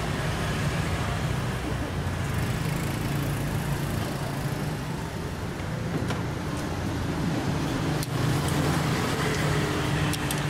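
Street traffic: a steady engine hum from passing or idling road vehicles, with a few sharp clicks partway through.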